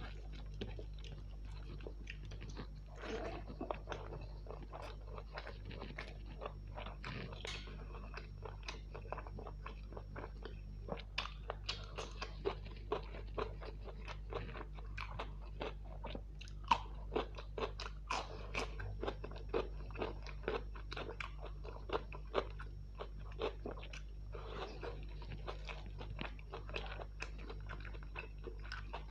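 Close-miked eating: irregular chewing, smacking and crunching bites of spicy mutton curry with rice and green chillies, over a steady low hum.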